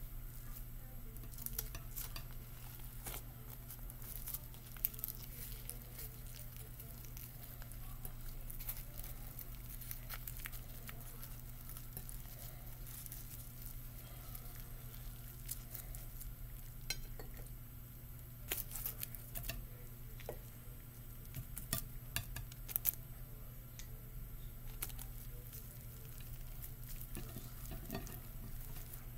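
Hands rolling and pressing a nori-wrapped sushi roll on a plate: scattered soft clicks and crackles, over a steady low electrical hum.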